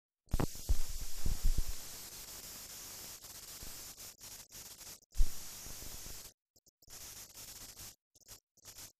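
Steady hiss and static of an old film's blank soundtrack, with several loud low thumps in the first two seconds and another about five seconds in. The hiss drops out in short gaps in the last few seconds.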